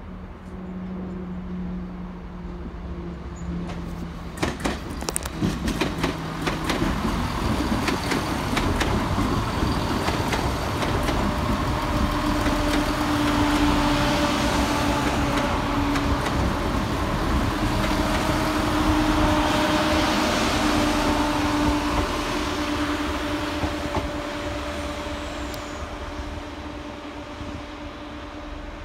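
Diesel multiple unit running past on the far tracks. A quick run of sharp wheel clicks over rail joints comes about five seconds in, then the steady drone of its engines with a held hum, loudest around the middle and fading away near the end.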